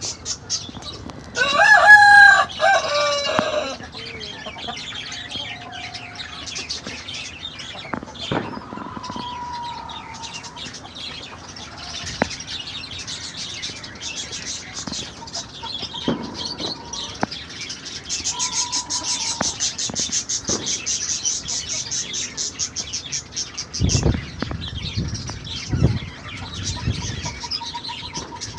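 A country rooster crows once, loudly, a couple of seconds in. Afterwards a rapid high chirping of small birds goes on, with a few short faint calls and a couple of low thumps near the end.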